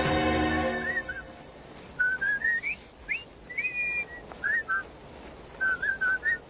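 Background music cuts off about a second in. It is followed by short, high whistled notes and quick upward glides in broken phrases, some held a little longer near the end.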